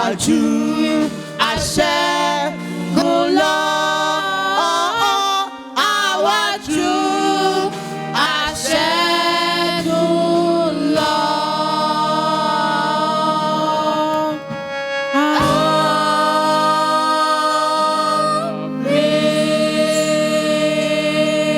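Choir singing a Yoruba hymn, the voices moving quickly at first and then holding long notes through the second half.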